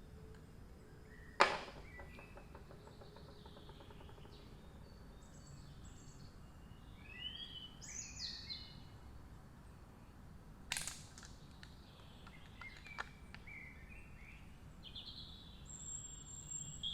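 Faint background with a loud sharp click about a second and a half in and a softer click near eleven seconds, as the handle of a tubeless tyre repair tool is changed over. Birds chirp faintly in the background now and then.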